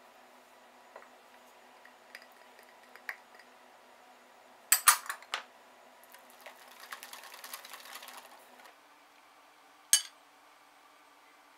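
Wire whisk clinking against a glass mixing bowl: a quick cluster of sharp clinks about five seconds in, then a few seconds of scratchy whisking through the batter. One more sharp clink near the end.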